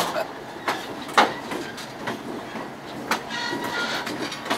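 Railroad passenger car rolling along the track: a steady running rumble broken by a few sharp, uneven clanks of the wheels and couplers.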